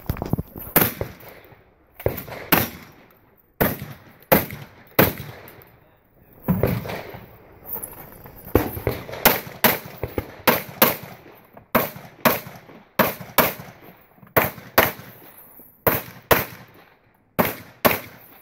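A pistol fired in a practical shooting course of fire: about two dozen shots, single and in quick pairs, with short gaps where the shooter moves between positions. Each shot is followed by a brief echo.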